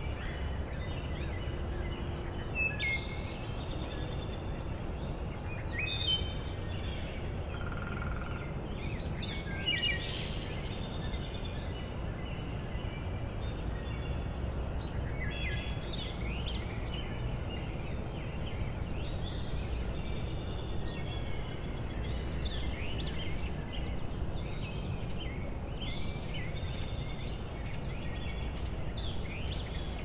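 Eastern wild turkey gobblers gobbling several times in the distance, mixed with scattered songbird calls, over a steady low background rumble.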